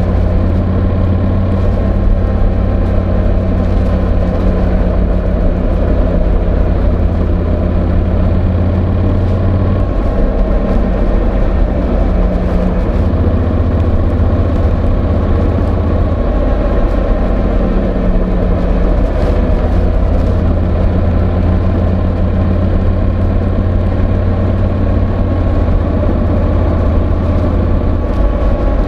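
Honda NC750X's parallel-twin engine running steadily under way, its low note shifting a few times. Mixed with wind and the rustle of the microphone rubbing inside a slippery fabric jacket pocket.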